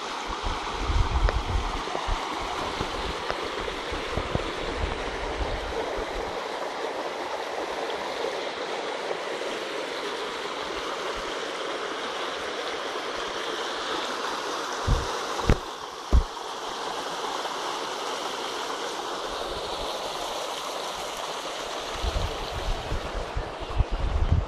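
Small stream running over rock, a steady rush of water. Wind rumbles on the microphone near the start and near the end, and two brief thumps come a little past halfway.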